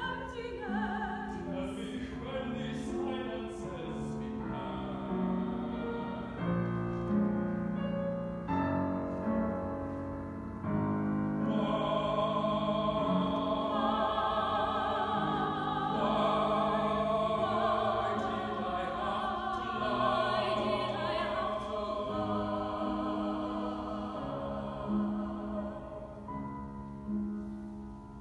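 Operatic singing with strong vibrato over piano accompaniment, growing louder about twelve seconds in and easing off again after about twenty-two seconds.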